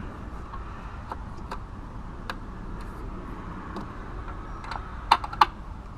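Scattered light clicks of a hand tool tightening a 10 mm bolt in an engine bay, with two sharper, louder clicks about five seconds in.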